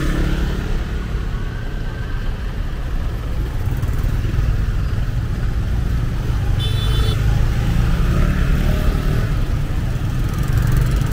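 Steady road traffic and motorbike noise with heavy wind rumble on the microphone while riding along a city street. A brief high-pitched beep sounds about seven seconds in.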